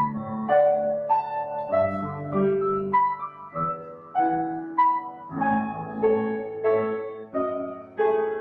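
Upright piano playing a slow solo piece, with a new note or chord struck about every half second, each ringing out and fading.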